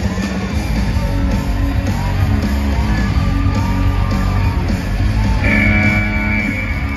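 Loud rock music with guitar and singing over heavy, steady bass, played over an arena sound system; a high held note joins it about five and a half seconds in.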